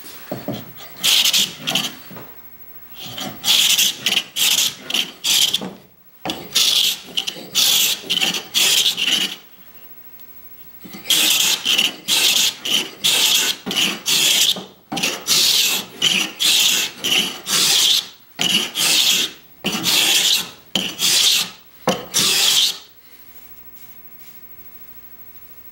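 A Stanley No. 80 cabinet scraper scraping the rough surface off a sipo mahogany board in quick repeated strokes, about two a second, in runs broken by short pauses. The scraping stops a few seconds before the end.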